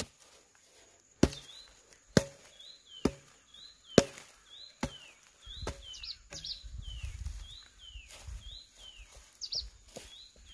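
A hand hoe chopping into dry soil about once a second, in sharp strikes, then softer scraping and loosening of the earth in the second half. A bird chirps repeatedly in the background, a short rising-and-falling call about every two-thirds of a second.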